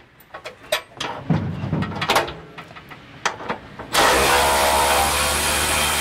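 Small clicks and clatter of tools and metal being handled. About four seconds in, a cordless electric ratchet starts running steadily, spinning out a bumper bolt.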